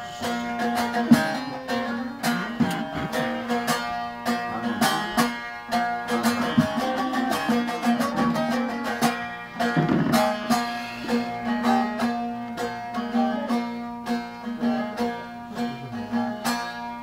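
Bağlama (saz), a long-necked Turkish lute, played solo: quick plucked runs over a steady ringing low note.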